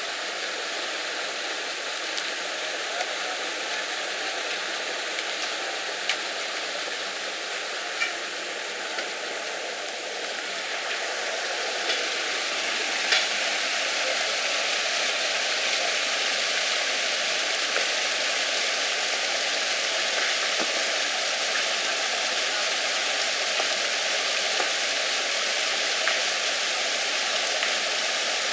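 Steady rushing noise that grows a little louder partway through, with a few faint scattered clicks and knocks.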